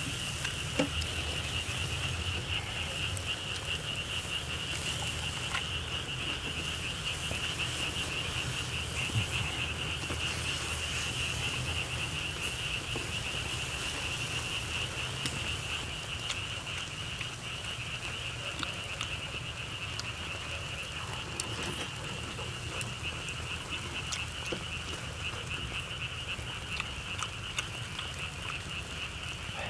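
A steady chorus of frogs: a continuous, finely pulsing high trill over a low hum, broken by a few sharp clicks.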